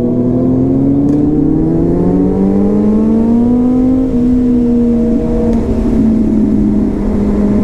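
Motorcycle engine pulling away under steady acceleration: its pitch climbs smoothly for about four seconds, eases slightly and then holds at a steady cruise, over a low rumble of wind and road.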